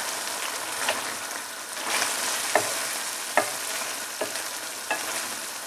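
Lamb, onion and tomato sizzling on full heat in a metal karahi as the meat's released juices cook down, while a spatula stirs and scrapes through it, knocking sharply against the pan about five times.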